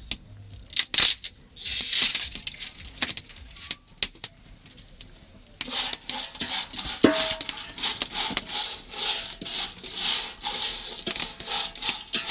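Small dried lake fish frying and being stirred in a pan: scattered clicks at first, then from about six seconds in a dense, continuous crackling and pattering. A utensil strikes the pan once with a short ring about seven seconds in.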